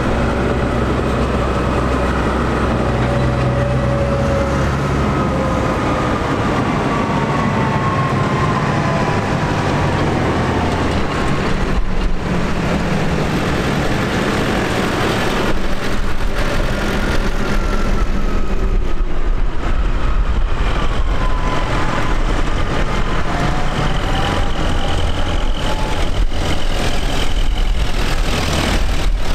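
Tractor engines running steadily, several at once, with whining tones that slide slowly up and down in pitch. The sound grows a little louder about halfway through.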